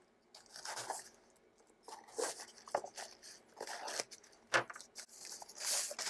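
Grey plastic mailer bag being cut and torn open with a hobby knife: short, scattered crinkling and tearing rustles, with a louder rustle near the end.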